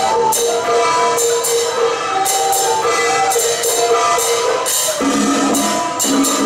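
Taiwanese temple procession music: a held, shifting melody over a steady beat of clashing cymbals and drums.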